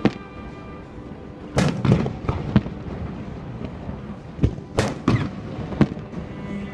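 Fireworks display: a series of sharp bangs from bursting shells, about eight in all, bunched about a second and a half in and again near five seconds. Music plays under them.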